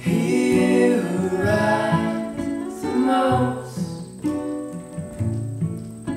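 Acoustic guitars strumming chords in the instrumental introduction of a folk song.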